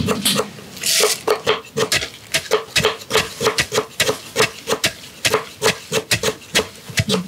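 Wooden pestle pounding roasted peanuts in a mortar: repeated knocks and crunches, about three a second, crushing the nuts.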